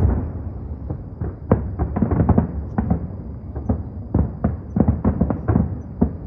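New Year's fireworks shells bursting in a rapid, irregular barrage of deep booms, about two a second, each with a rumbling tail.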